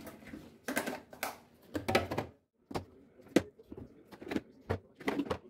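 Irregular clicks and knocks of household items, such as containers and fridge parts, being handled and set down, about fifteen in quick succession.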